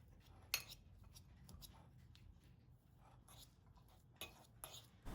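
Faint, scattered clicks and taps of a utensil against a bowl, the sharpest about half a second in, as boiled egg yolks are mashed with mayonnaise and spices.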